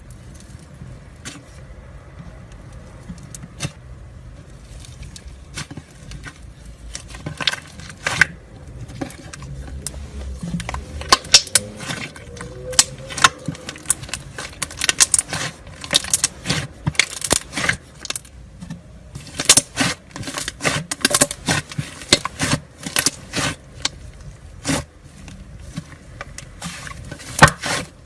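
Slime being squeezed and worked by hand, making irregular sharp popping and crackling clicks. The clicks are sparse at first, come thick and fast through the middle, and thin out near the end.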